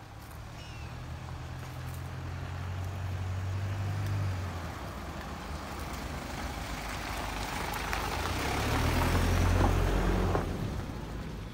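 Motor vehicles passing on a road, one after another. An engine hum swells to about four seconds in and eases off, then a second, louder vehicle passes nine to ten seconds in and fades away.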